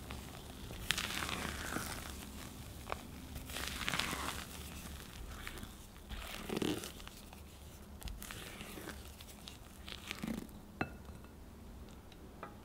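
Silicone spatula folding sifted almond flour and cocoa into whipped meringue in a glass bowl: irregular scraping strokes against the glass with soft, wet squelches of the batter and a few light ticks.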